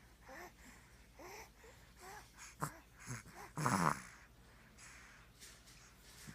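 Snoring in sleep: short, squeaky, wheezing breaths about once a second, then one louder, rough snore about three and a half seconds in.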